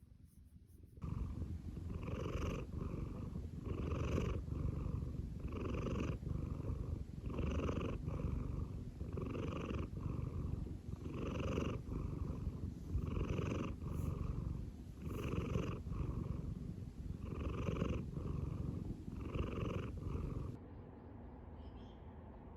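Domestic cat purring close to the microphone: a continuous low rumble that swells and eases with each breath in and out, about one breath every two seconds. It starts suddenly about a second in and cuts off a couple of seconds before the end.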